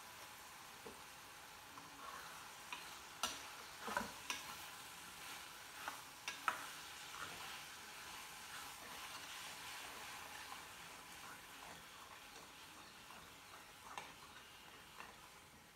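Spatula stirring diced brinjal and ridge gourd in a steel frying pan over a faint sizzle, with several sharp knocks of the spatula against the pan, bunched about three to seven seconds in and once more near the end.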